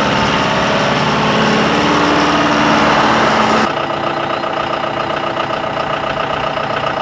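John Deere 5115M tractor's four-cylinder turbo diesel engine running as the tractor drives, growing slightly louder. About three and a half seconds in it changes abruptly to a steady idle.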